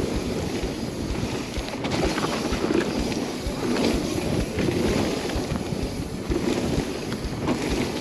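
Mountain bike riding fast down a dry dirt trail: tyres rolling over loose dirt with frequent small knocks and rattles from the bike over bumps, and wind buffeting the microphone.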